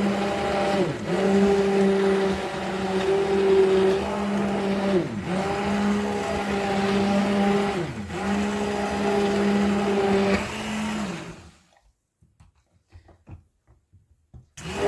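An old Bosch immersion blender runs in a pot of vegetable soup, puréeing it with a steady motor hum. Its pitch sags briefly three times as it takes load. It cuts off about eleven and a half seconds in and starts again near the end.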